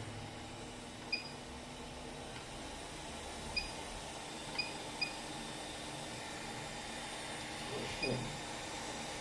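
Hot air rework station blowing a steady hiss of hot air at 350 °C and airflow 50 to reflow a phone's flex connector. Five short high beeps sound over it, and there is a brief low sound about 8 seconds in.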